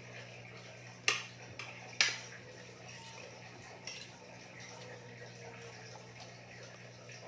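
Spoon and fork clinking against ceramic plates while eating: two sharp clinks about a second apart, then a fainter one a couple of seconds later, over a steady low hum.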